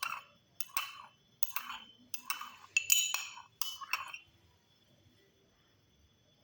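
Kitchenware clinking in about six short bursts over roughly four seconds, then stopping.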